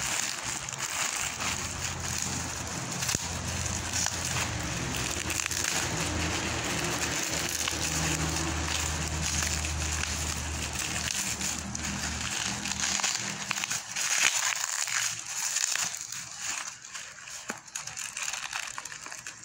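Plastic courier mailer and black bubble wrap crinkling and rustling as a package is torn open and unwrapped by hand, with a low hum underneath that stops about two-thirds of the way through.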